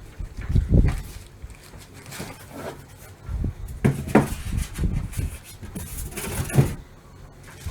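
Handling noise from a boxed PC case and its hard-foam packaging being turned over: irregular knocks and thumps with some rustling, the loudest bumps about a second in, around the middle and near the end.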